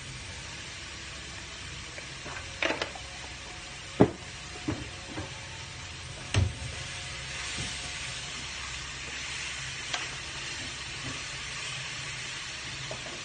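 Food sizzling in a frying pan on a gas burner as it is stirred, with several sharp knocks of a utensil against the pan, the loudest about four seconds in.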